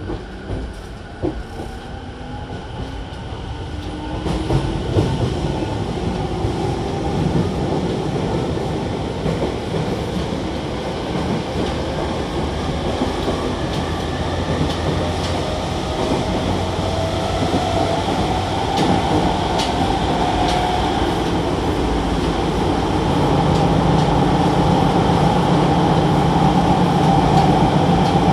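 Sotetsu 10000 series train with a renewed Mitsubishi IGBT VVVF inverter accelerating, heard inside the passenger car: the inverter and traction-motor whine rises steadily in pitch as wheel and running noise grows louder. A few sharp clacks sound near the start.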